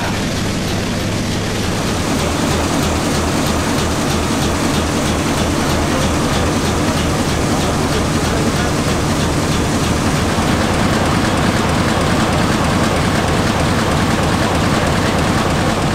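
MAN S6V35 six-cylinder WW1 U-boat diesel engine running and driving an AC generator, a fast, steady beat of firing strokes. It gets a little louder about two seconds in.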